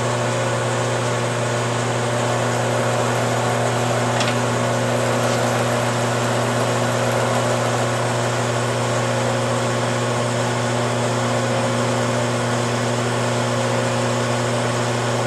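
Metal lathe running steadily with a hum and a few steady whining tones, while its tool takes a fine cut across the copper commutator of a motorcycle starter armature. The cut skims the worn, bumpy contact surface true so the brushes bear on it again.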